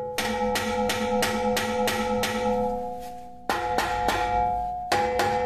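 A claw hammer repeatedly strikes a rusted car exhaust pipe at the muffler, about three or four blows a second, and the struck metal rings on between blows. The blows stop for about a second partway through while the ringing fades, then start again. The hammering is knocking the seized exhaust loose.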